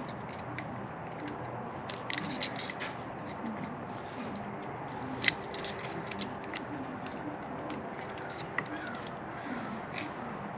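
Hands working an hour meter's sensor wire and fittings onto a string trimmer: scattered small clicks and handling rustle, with one sharper click about five seconds in, over a steady background hum.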